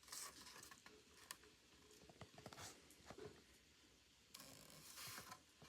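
Faint scattered clicks and a few short scratchy rubbing sounds, the longest a little over four seconds in, against near silence.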